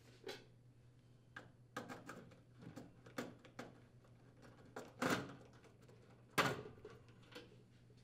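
Screwdriver backing out screws from the sheet-metal support rails of a furnace blower assembly: faint clicks and scrapes of metal handling, with two louder scuffs about five and six and a half seconds in.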